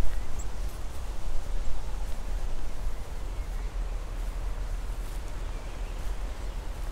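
Wind buffeting the camera microphone outdoors: a steady low rumble under a faint hiss, strongest in the first second and then easing.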